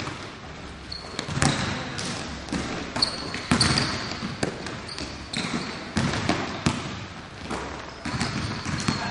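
Several basketballs bouncing irregularly on a gym floor, with short high squeaks of sneakers on the court between the bounces.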